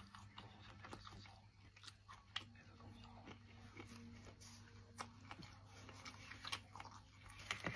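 Close-up eating sounds: scattered soft clicks of biting and chewing.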